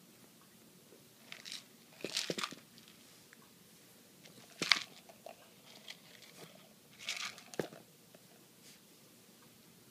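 Close handling noise: crinkling, crunching clicks in four short bursts, with the sharpest click about halfway through.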